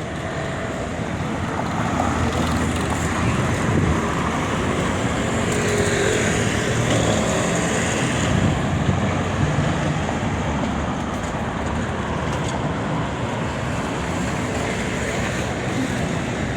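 Road traffic on a busy city avenue: a steady wash of cars passing, growing louder about two seconds in and easing a little after the middle.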